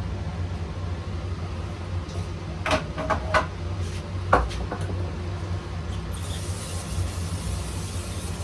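A few sharp clicks and knocks of tools and parts being handled, about three to four and a half seconds in, over a steady low hum.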